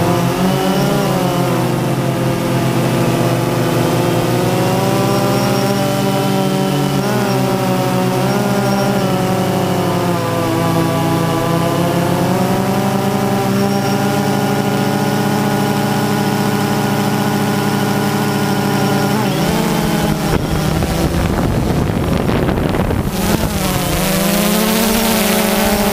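DJI Phantom 2 quadcopter's electric motors and propellers whining, heard close up from the camera slung beneath it; the pitch drifts up and down as the motors change speed. About 19 seconds in, a rougher rush of noise takes over for a few seconds before the steady whine returns.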